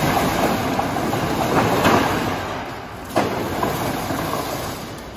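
Corrugated steel roll-up door rattling and clattering as it is hauled open by its hand rope, the slats coiling up overhead. A few sharper clacks come about two and three seconds in, and the rattle tapers off toward the end.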